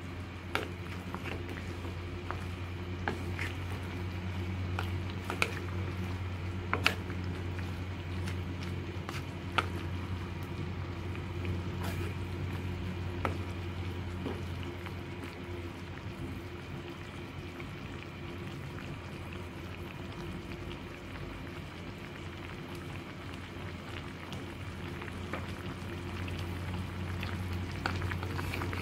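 Chicken and shiitake broth bubbling in a ceramic pot, with scattered sharp pops and clicks over a steady low hum.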